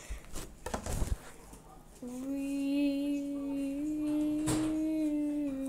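A girl humming one long, steady note that starts about two seconds in. Before it, a few soft clicks and a low thump from hands handling a fluffy slime.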